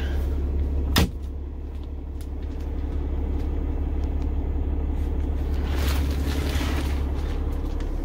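A sleeper-cab cabinet door shuts with a single sharp knock about a second in. Behind it is the steady low rumble of the truck's diesel engine idling.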